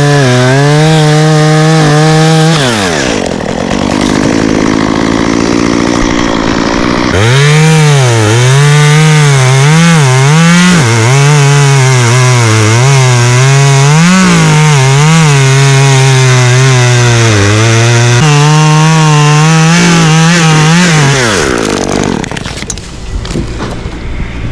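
Two-stroke chainsaw cutting wood at high revs, its engine pitch dipping and recovering as the chain bites. About two and a half seconds in it drops off the throttle, revs back up about seven seconds in for a long cut, and winds down near the end.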